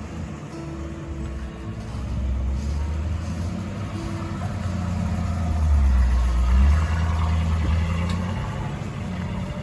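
A car engine running with a low rumble that builds to its loudest about six seconds in and then eases back.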